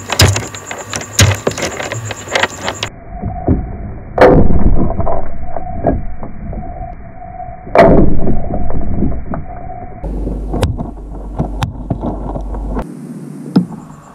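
Heavy booming impact sound effects: two very loud booms about four and eight seconds in, each with a long low rumble after it, among scattered sharp clicks and knocks.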